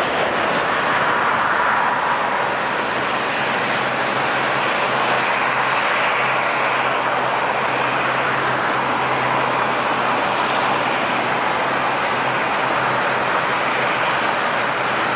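Jet airliner engines running at taxi idle: a steady rushing noise with a faint low hum beneath it.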